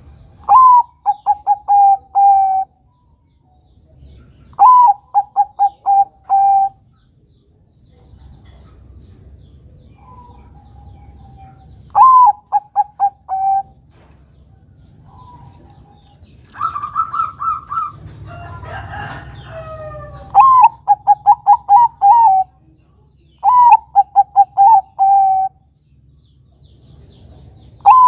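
Bangkok-line zebra dove (perkutut) cooing its song over and over: each phrase opens with a rising note, then a quick string of short staccato coos ending on a longer held note, repeated every few seconds. Midway there is a higher, steadier call and a brief rough noise.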